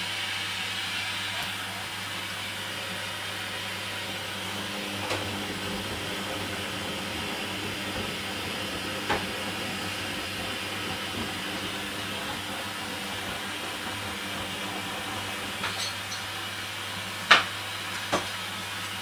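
Hoover Dynamic washing machine in its final rinse, running with a steady hum and a hiss of water, broken by a few sharp clicks, the loudest two close together near the end.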